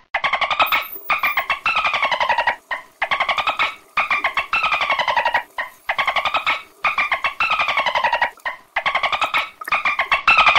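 Dolphin burst-pulse chatter: rapid trains of clicking pulses in bursts under a second long, each dropping slightly in pitch, repeated about once a second with short gaps.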